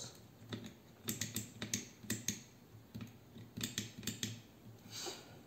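Light, irregular clicks and taps of multimeter probe tips against a hand blender's circuit board and plastic housing, with a quick cluster of them about three and a half seconds in.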